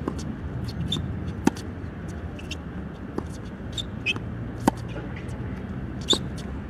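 Tennis ball being struck by rackets and bouncing on a hard court during a rally: five sharp pops about every one and a half seconds, the loudest near the start and about two-thirds of the way through, over a steady low background rumble.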